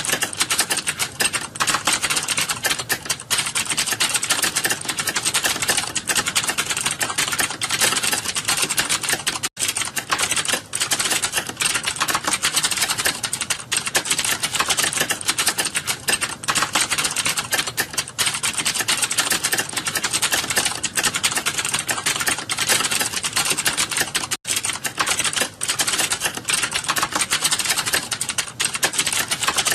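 Fast, continuous typing on a computer keyboard: a dense stream of key clicks, broken by two very short pauses.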